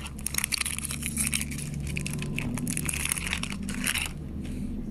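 Foil wrapper of a Magic: The Gathering booster pack crinkling in the hands as the pack is opened and the cards are pulled out; the crinkling dies down about four seconds in. A steady low hum runs underneath.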